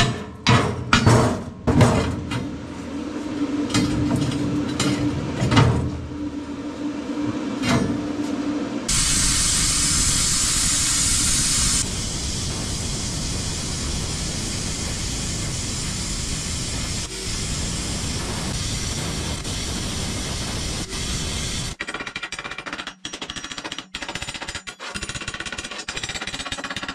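Workshop tool noise: a quick run of hammer strikes, then, about nine seconds in, a long steady hissing noise from a power tool that starts abruptly and breaks up into short choppy bursts near the end.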